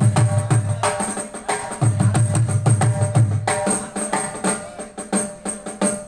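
Percussion playing: fast drum strokes over a steady jingling, tambourine-like beat, with two runs of rapid low drum strokes, one right at the start and one from about two to three and a half seconds in.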